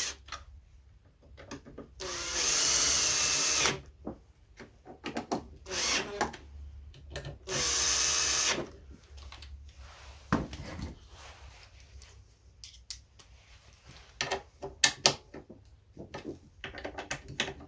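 Makita cordless drill-driver driving the carburettor mounting screws home. The motor whines twice for about a second each, spinning up and winding down, with a short blip between the two runs. After that come scattered clicks and knocks of tool handling.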